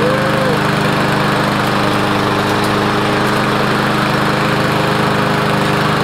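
Riding lawn mower's small gasoline engine running steadily just after starting, its freshly cleaned carburetor now keeping it going.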